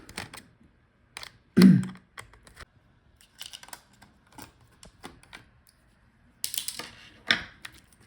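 Small clicks and taps of hand tools and small metal parts working on an opened laptop, taking off the bracket over the battery connector, with one louder knock about one and a half seconds in and a run of sharper clicks near the end.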